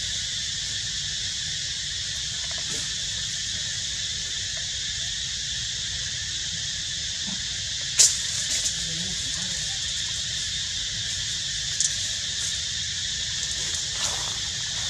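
Steady high-pitched insect chorus droning throughout, with a few sharp clicks, the loudest about eight seconds in.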